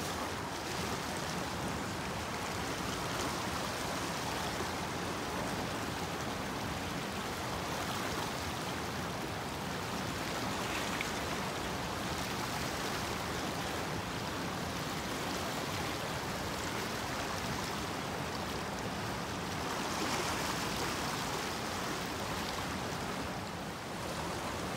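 Steady rushing of a fast-flowing stream tumbling over rocks.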